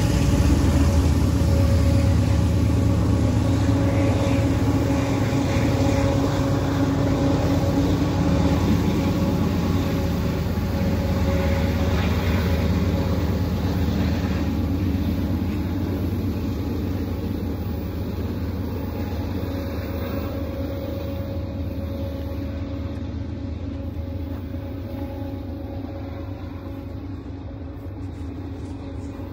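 GE diesel locomotive at the rear of a freight train as a distributed-power unit, working uphill as it passes and pulls away. Its steady engine drone, with a held hum, fades gradually.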